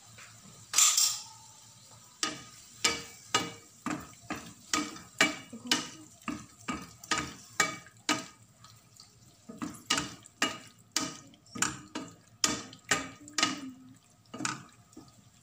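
Wooden spatula stirring tofu cubes and mayonnaise in a stainless steel frying pan, making short scraping knocks against the pan about two a second. A single louder clatter comes about a second in.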